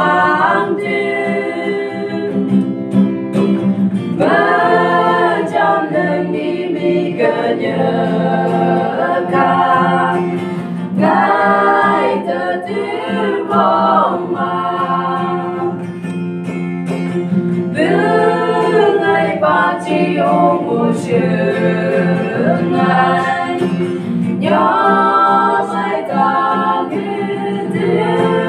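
A small mixed group of men's and women's voices singing a gospel song in Phom together, accompanied by an acoustic guitar.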